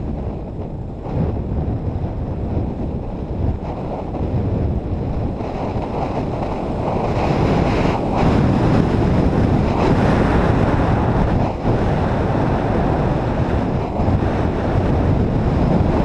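Wind rushing over the action camera's microphone and skis sliding over snow during a downhill run, a steady loud rush that grows louder about seven seconds in.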